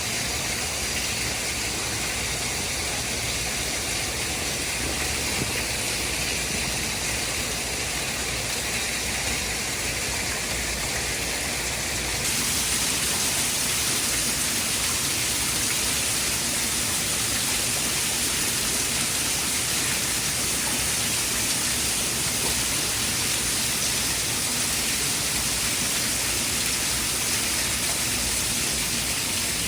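Steady rushing white noise, like heavy rain or falling water. About twelve seconds in the hiss turns brighter and a little louder.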